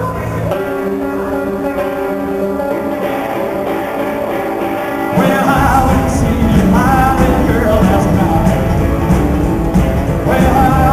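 Live rockabilly band with acoustic and electric guitars, upright bass and drums. It opens with quieter held notes, then about five seconds in the full band comes in louder and a man sings.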